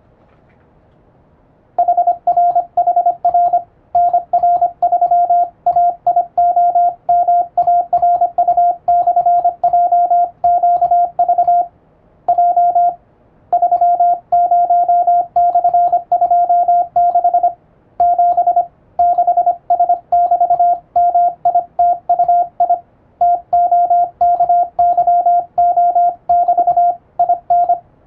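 Morse code sent with an electronic keyer, heard as a steady tone near 700 Hz keyed rapidly on and off into dots and dashes, beginning about two seconds in. Brief pauses mark breaks between groups of a Latin-alphabet radiotelegram.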